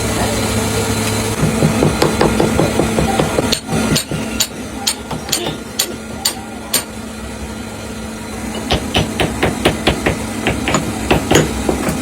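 Hand hammer striking metal in repeated blows. A run of about eight heavy strokes comes at roughly two a second, then a quicker run of lighter strokes near the end.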